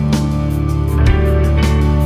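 Background music with a steady beat of about two hits a second and a guitar to the fore.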